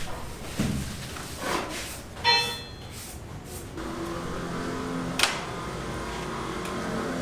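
A ringing metal clang about two seconds in, among a few sharp knocks. From about four seconds in, a steady engine hum runs underneath, with one sharp click a second later.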